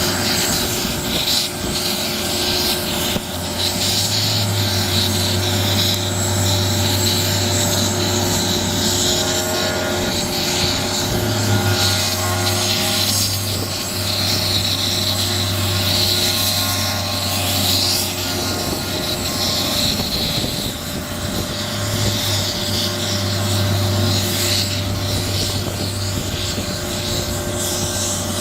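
Police helicopter's turbine engine and rotor running steadily, a constant low beat with a steady whine above it.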